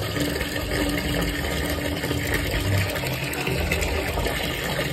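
Water running steadily and splashing in a tub of water.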